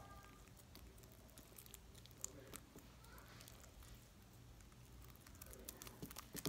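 Faint sticky squelches and small clicks of homemade, Tide-activated slime being stretched and squeezed by hand, the clicks coming thicker near the end.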